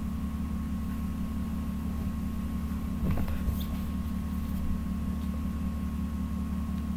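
Steady low electrical hum and buzz with a faint steady high tone, and a few clicks about three seconds in.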